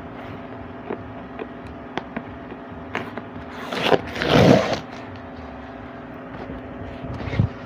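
Printer packaging being handled while the box is opened: scattered light clicks and knocks, and one loud rustling scrape about four seconds in, over a steady low hum.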